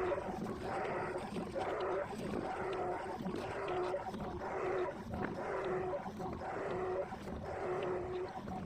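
Hitachi long-arm excavator working, its engine and hydraulics running with a pitched drone that swells and fades about once a second.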